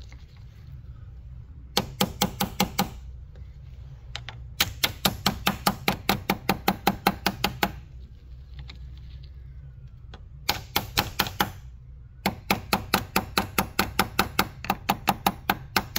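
Rapid light metal tapping on a battery terminal clamp, driving it down onto the battery post. The taps come in four quick runs of about six a second, with short pauses between them.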